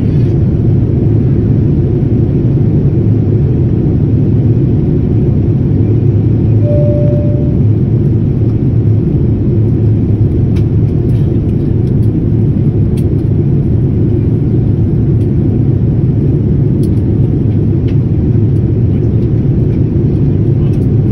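Steady low rumble of an airliner's jet engines and rushing airflow, heard from inside the passenger cabin in flight.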